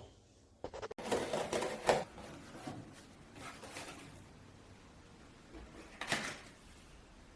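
Irregular rustling and clattering of things being handled, with a sharp click about a second in and a short bump near six seconds.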